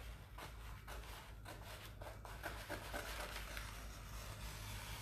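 Quiet rustling and small clicks from an IOD decor transfer sheet and its protective paper being handled.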